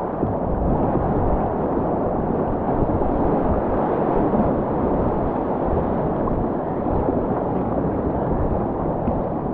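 Whitewater rapids rushing steadily, a loud even noise with an uneven low rumble of buffeting on the microphone.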